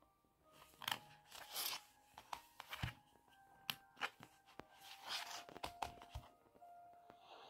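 A hardback board book being handled on a table: swishes as it slides and turns over, sharp clicks and a couple of dull thumps as the board cover is set down, over faint music.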